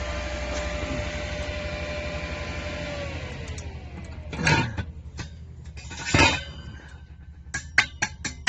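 Stick-welding arc on a thin stainless steel tube, a steady hiss and hum that dies away about three seconds in. Then two loud metallic knocks and, near the end, a quick run of light metal taps on the workpiece.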